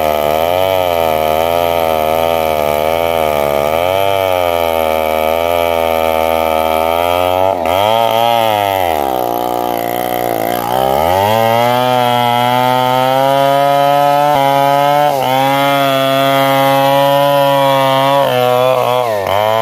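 Chainsaw running at high revs while cutting wood, its pitch wavering under load. About eight seconds in, the engine drops to a much lower pitch for a couple of seconds, then revs back up and holds a steadier high pitch.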